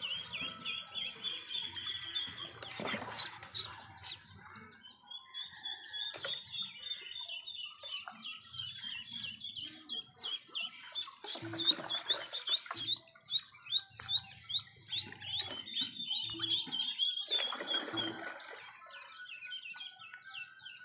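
A group of ducklings peeping, high and rapid, several calls a second. A few times water splashes in their plastic tub as a hand stirs among them.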